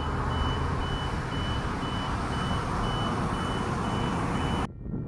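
Railroad crossing's electronic warning bell beeping about twice a second, a single high tone, as the crossing signals are activated. Underneath is a steady rumble of noise, and both cut off abruptly near the end.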